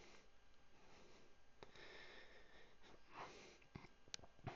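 Near silence: faint room tone with soft breath-like noises and a few small clicks near the end.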